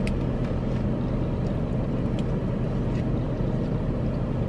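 Steady low hum of an idling car heard inside the cabin, with a few faint clicks.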